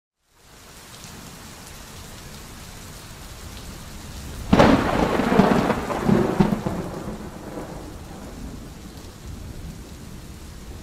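Steady rain falling, fading in at the start, with a sudden thunderclap about four and a half seconds in that rumbles on for a few seconds before dying away.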